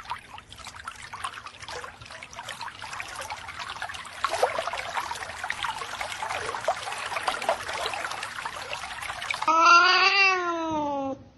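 Electric pet water fountain trickling, with small splashes and clicks as a kitten paws at the stream. Near the end a cat gives one loud, drawn-out meow that rises then falls in pitch while its claws are being clipped.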